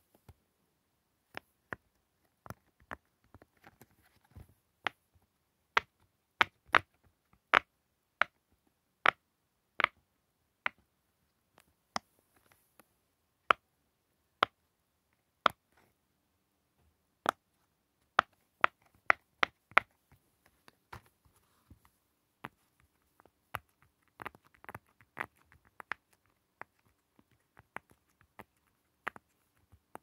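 Silicone push-pop fidget toy (pop it) bubbles pressed through one by one with a finger, each giving a sharp pop. The pops come about one or two a second, with a quicker run of softer pops near the end.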